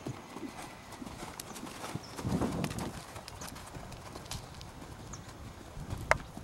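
Hoofbeats of a young horse cantering on a dirt arena, dull thuds in an uneven rhythm, with a single sharp knock near the end as it reaches a jump.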